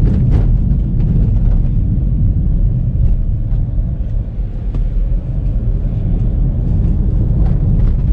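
In-cabin rumble of an Audi A4 with a 2.0 turbo four-cylinder and CVT driving at low speed: steady engine and road noise. It eases a little about four seconds in as the car slows for a corner, then builds again as it picks up speed.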